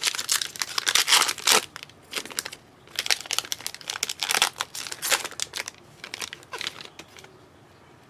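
Foil wrapper of a trading-card pack being torn open and crinkled, in several bursts of crackling with short pauses, stopping near the end.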